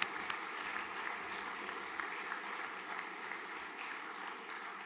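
An audience of students and staff applauding in a hall, steady clapping that begins to taper off near the end.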